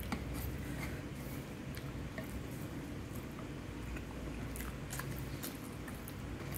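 A person chewing a mouthful of rice, dried fish and vegetables, with small mouth clicks at irregular intervals over a steady low hum.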